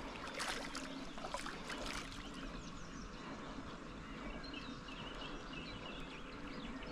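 Quiet outdoor ambience: a low steady noise with faint bird chirps a few seconds in.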